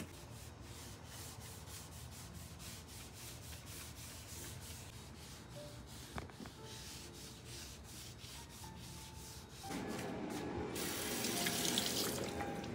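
A folded cloth rubbing over a hardwood floor in quick back-and-forth strokes. About ten seconds in, this gives way to a louder rush of water from a bathroom sink tap running into the basin over rinsing hands.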